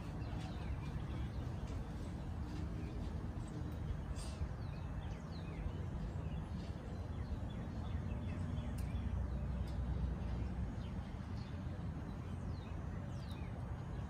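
Birds chirping now and then, short high calls scattered through, over a steady low rumble of outdoor background noise.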